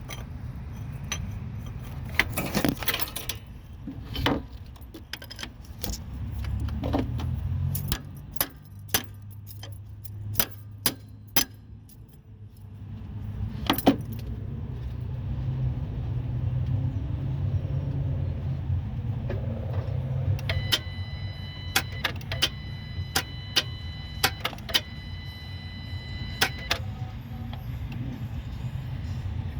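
Sharp metallic clicks and jingles, many in quick clusters, over a low steady hum. About two-thirds of the way through, a car's warning chime dings repeatedly for several seconds.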